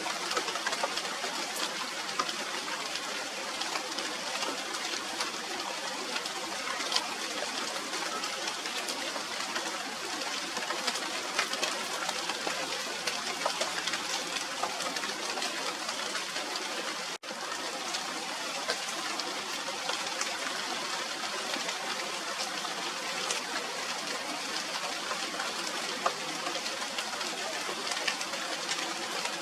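Steady rain falling on the leaves of a Radermachera sinica (China doll) tree: an even hiss of rain with many small drop hits ticking through it. The sound breaks off for an instant about seventeen seconds in.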